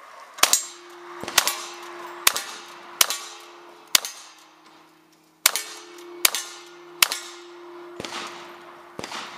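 A string of gunshots at a cowboy action shooting stage, about a dozen at roughly one a second, with a short pause about four seconds in. Steel targets ring on steadily between the shots.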